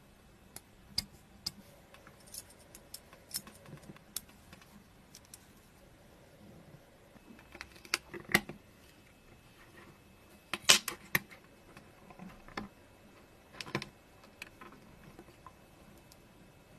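Scattered small clicks and taps of diecast model-car parts and a metal pick being handled and fitted together. The loudest clatter comes about eight and eleven seconds in.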